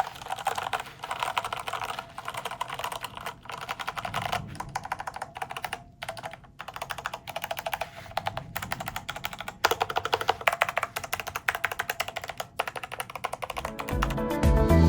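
Fast typing on a Zanmson KB5223D mechanical keyboard with red linear switches: a rapid, dense clatter of keystrokes broken by a few brief pauses.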